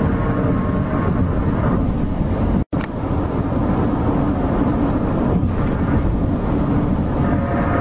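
Loud, steady rumbling drone with a few faint held tones over it, of the kind recorded as the 2011 'mystery sounds' in the sky; it drops out abruptly for a split second about two and a half seconds in.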